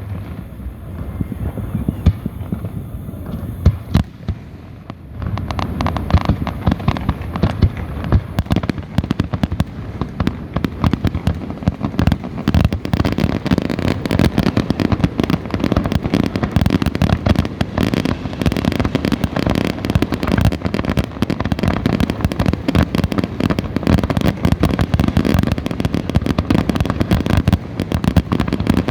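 Fireworks bursting: a few separate bangs, then from about five seconds in a dense, continuous barrage of bangs and crackling that grows thicker still.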